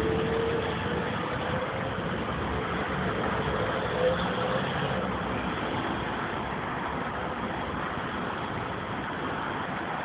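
Tram running on the rails with a faint wheel squeal that drifts slightly in pitch and fades out about halfway through, leaving a steady rolling rumble that slowly gets quieter.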